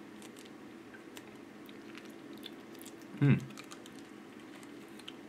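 Faint, scattered sticky clicks of wooden chopsticks stirring soy sauce into natto in a polystyrene tray, over a low steady hum. About three seconds in there is one brief, loud voice sound that falls in pitch.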